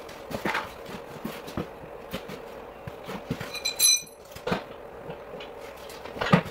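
An ATV wheel with a knobby tire being handled and offered up to the hub: scattered knocks and thumps of rubber and metal, a brief high-pitched ring about four seconds in, and a heavier thump near the end, over a steady low hum.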